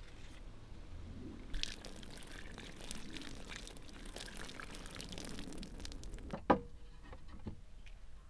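Soft rustling and crackling of cucumber leaves and vines as a cucumber is picked, then a single sharp knock about six and a half seconds in as a wooden board is set down on a wooden table.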